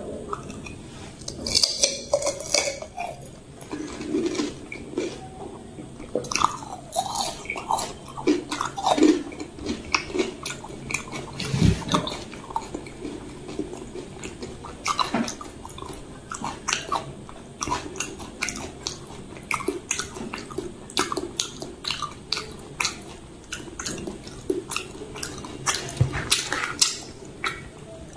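Pani puri being chewed close to the microphone: crisp puri shells crunching and mouth-chewing sounds, a long run of short sharp crunches throughout.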